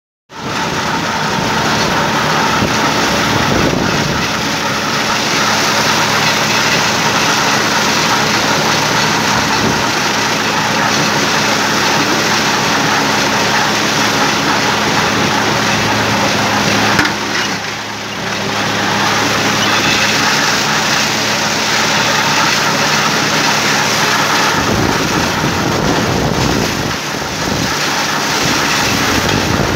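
Tümosan 5275 tractor's engine running steadily under load, with a Türkay drum mower spinning as it cuts triticale. The loudness dips briefly a little past halfway through.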